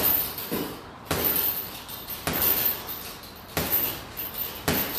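Boxing-glove jabs landing on a hanging heavy bag, about five punches roughly one a second, each thud followed by a clink of the bag's hanging chains.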